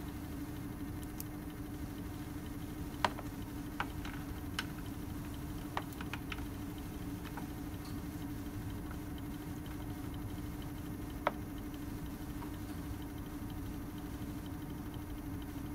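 A steady low equipment hum, with a few light clicks and taps as small glass bottles are handled and set down on a plastic tray.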